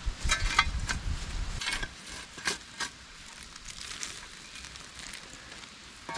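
Steel shovel blade scraping and scooping through hot coals and ash in a campfire pit, heaping coals over foil-wrapped potatoes. A few short scrapes come in the first three seconds, over a low rumble that dies away after about a second and a half; then only the fire's faint crackle.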